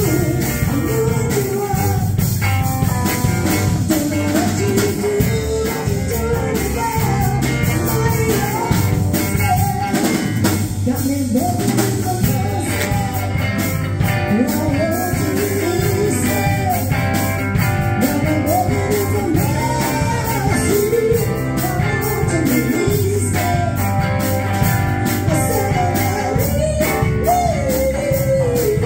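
Live rock band playing with a woman singing lead: electric guitars, bass guitar and drum kit under her bending, held vocal lines.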